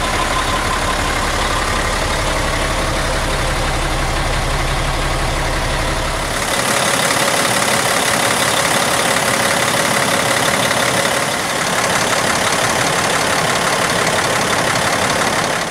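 International 8100 day cab's Caterpillar diesel engine idling steadily. For the first six seconds or so it is a deep rumble; after that the low rumble drops away and the higher engine noise is louder, as from the open engine bay.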